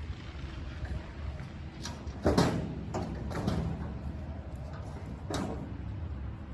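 A few clattering knocks, the loudest about two seconds in and another near the end, over a low steady rumble.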